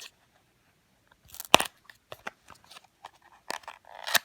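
Cardboard flashlight box being opened by hand: scattered sharp clicks and crackles of the packaging, the loudest about a second and a half in, with a brief rustle near the end.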